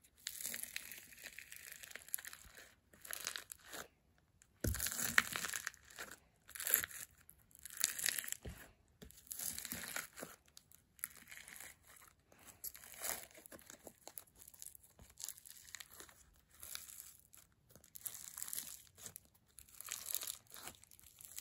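Bead-filled slime being squeezed and poked by hand in its tub, giving irregular bursts of crackling and crunching, one every second or so.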